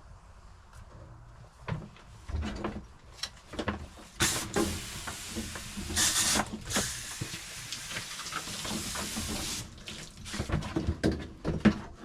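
Water running steadily for about five seconds, starting about four seconds in, amid scattered knocks and handling clatter.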